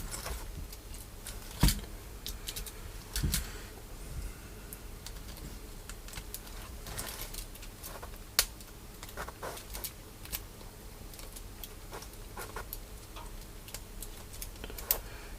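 Cherry MX key switches being pushed and snapped into a keyboard's aluminium plate and PCB: irregular plastic clicks and snaps, a louder one about a second and a half in.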